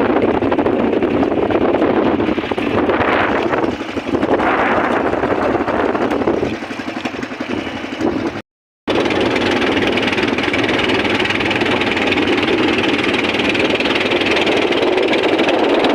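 Fishing boat's engine running steadily under way. It drops out in a short gap of silence about halfway through, then carries on.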